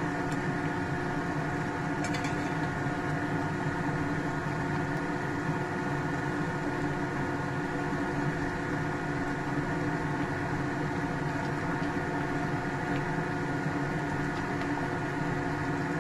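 Steady mechanical hum made of several held tones over a low rumble, with a couple of faint clicks about two seconds in.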